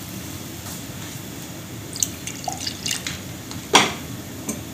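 Steady low background hiss with a few faint scattered ticks, then one sharp knock near the end as a plastic water bottle is set down on the steel stovetop beside the pan of heating yogurt curry.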